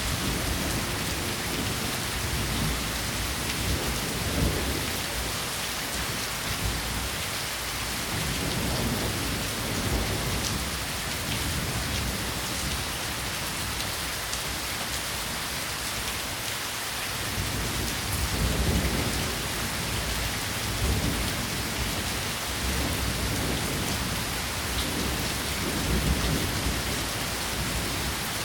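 Steady rain falling, a dense even hiss of drops, with a low rumble that swells and fades several times.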